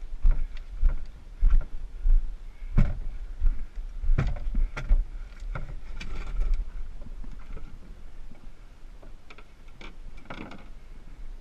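Footsteps on rock and gravel under a canoe carried overturned on the shoulders, with irregular knocks and thuds, about one a second, over a low rumble. After a quieter stretch, a few clicks and knocks near the end as the canoe is set down.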